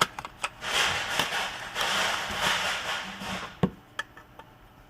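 Hands working on a laptop's hard-drive parts: a few light clicks, then about three seconds of scraping and rustling, and one sharp click after about three and a half seconds.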